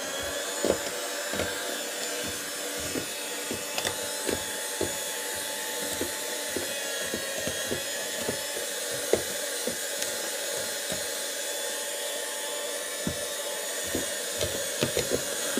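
Electric hand mixer running steadily, its beaters whisking a foamy egg-and-sugar batter while oil is added gradually, with frequent irregular clicks of the beaters knocking the bowl.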